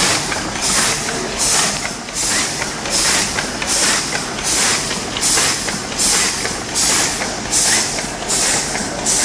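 Automatic production machine running in steady cycles, a burst of hiss about every three-quarters of a second over a continuous mechanical clatter and hum.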